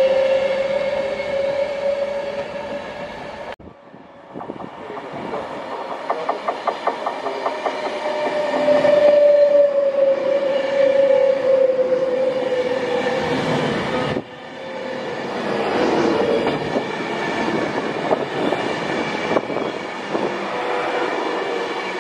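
Virgin Class 390 Pendolino electric train passing at speed with a steady whine that slowly rises and falls, and wheels clattering rhythmically over the rail joints. The sound breaks off abruptly twice, about three and a half and fourteen seconds in, and picks up again.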